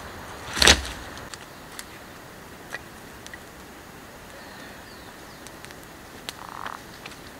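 One loud sharp crack of dry branches about a second in, followed by scattered light ticks and snaps, typical of a small wood campfire and of feet on dry leaf litter.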